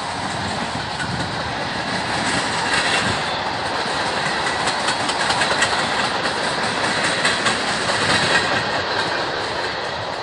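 Loaded freight train of tank cars rolling past on the nearest track: a steady noise of steel wheels on rail, with repeated clicks as the wheels cross the rail joints.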